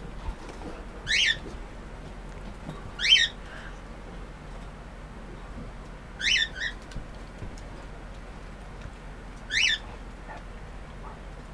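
Great Dane puppy giving short, high-pitched yelps while play-fighting with an older dog: four squeals a few seconds apart, the third a quick double, the second the loudest.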